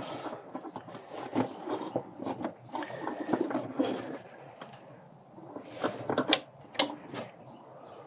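Hand work on parts and tools: irregular rubbing and rustling with scattered clicks, and a few sharp clicks about six to seven seconds in.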